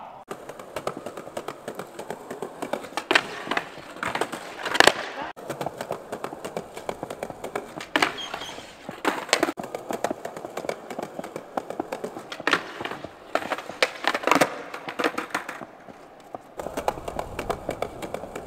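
Skateboard sounds: wheels rolling over paving slabs and the board repeatedly clacking and slapping down onto the tiles and a wooden ledge during darkslide attempts, with several sharp clacks spread through the stretch.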